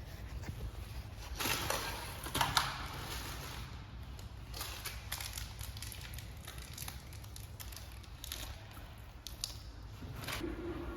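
Handling noises: scattered rustling and scraping with light clicks, the busiest stretch about two seconds in, over a faint steady low hum.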